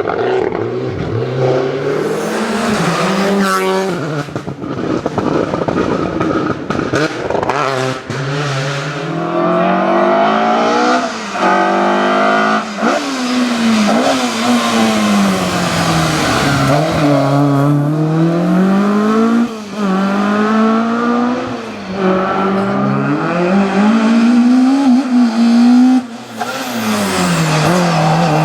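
Rally car engine driven hard, its pitch climbing and dropping again and again every couple of seconds as the car accelerates, lifts and shifts through the gears, with a few brief drops in level.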